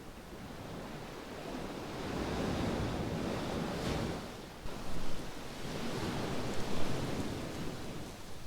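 Ocean waves breaking and washing up the shore, swelling twice, with gusts of wind on the microphone.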